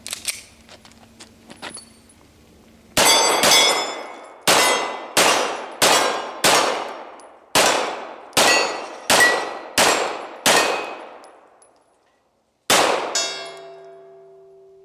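A few metallic handling clicks, then a Beretta 92FS 9mm pistol fires about a dozen shots at a steady pace, each ringing out with a clang of steel targets. After a pause of about two seconds comes one last shot, and a hit steel plate rings on with a steady tone.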